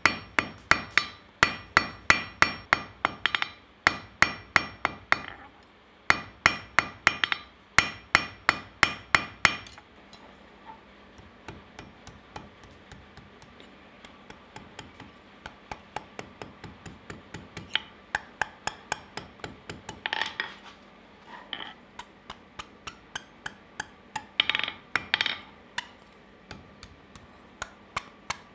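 Hand hammer striking a red-hot steel bar on an anvil, curling the bar's end into a loop. For the first ten seconds it strikes fast, ringing blows, about three a second, with a short pause partway. After that the blows turn lighter and quieter, with a few harder strikes near the end.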